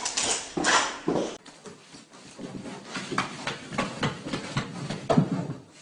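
A dog making a few short excited noises, followed by a run of quick, light taps and clicks.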